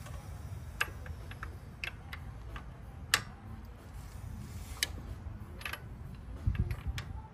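Sharp, irregular metallic clicks, roughly one a second, as the camshaft of a Nissan Micra K11 engine is turned slowly by hand with a breaker bar on the cam sprocket bolt. A low thump comes near the end.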